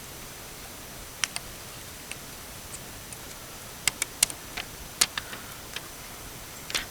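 Scattered small, sharp clicks and taps, irregular and a few at a time, from fingers handling the new plastic emblem and its adhesive backing, over a steady low hiss.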